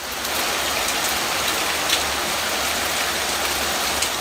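Heavy hurricane rain: a steady, dense hiss of rain and wind with a few sharp drop taps.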